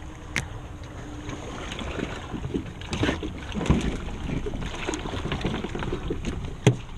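Handling noises on a kayak as a just-caught fish is measured: irregular knocks, clicks and rustling, with a sharp knock near the end.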